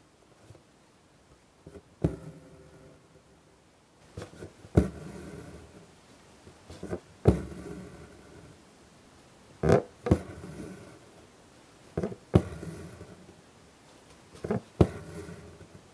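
Hand-embroidery needle punching through fabric stretched taut in an embroidery hoop: about eight sharp pops, some in quick pairs, each followed by a short rasp as the thread is drawn through.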